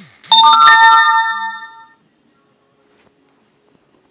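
Added sound effect: a short swooping tone, then a loud bell-like crash whose ringing tones fade out over about a second and a half.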